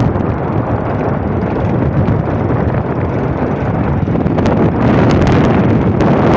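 Wind buffeting the microphone: a loud, steady, low rumbling rush with no clear pitch.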